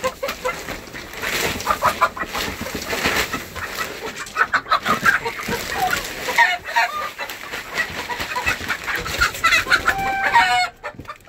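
A flock of chickens clucking and calling in quick, overlapping bursts, with one longer held call near the end, over the rustle of pine shavings being handled.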